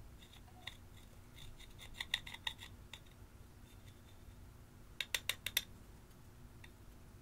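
Metal sculpting tool scraping and crumbling pressed eyeshadow in its metal pan: scattered light scratchy clicks, then a quick run of about five sharp taps about five seconds in.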